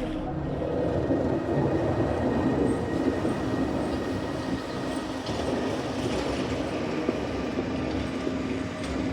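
Steady rumble of a train in motion, with a constant hum over it.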